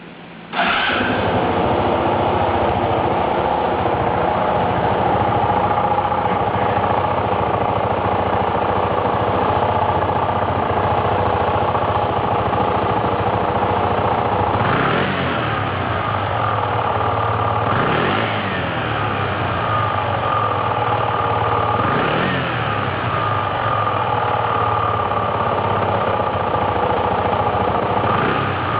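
Suzuki GSR125 scooter's single-cylinder four-stroke engine starting about half a second in, then idling, with three short throttle blips near the middle; the owner is recording an abnormal noise from the engine.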